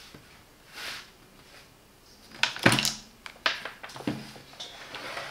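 Clamp-meter test leads and probes being handled. A soft rustle comes first, then a few sharp clicks and knocks, the loudest about two and a half seconds in, as the probes come out of a power-strip socket and are moved about.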